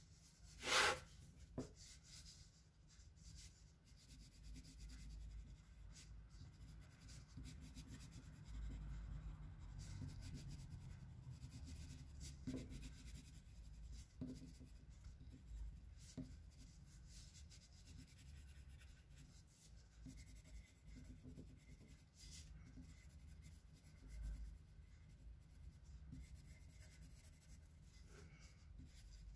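Graphite pencil scratching and rubbing on paper on a clipboard in short sketching strokes, faint. One short, louder noise about a second in.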